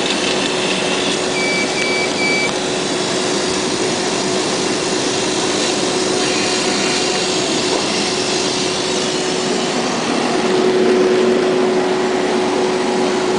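CNC laser engraving and cutting machine running: a steady whirring hum of its fans and motors with a constant drone, and three short high beeps about a second and a half in. The hum grows a little louder about ten seconds in.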